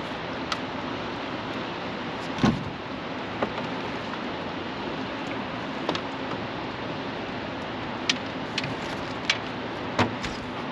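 Steady rushing noise with several short, sharp clicks and knocks scattered through it, the loudest about two and a half seconds in.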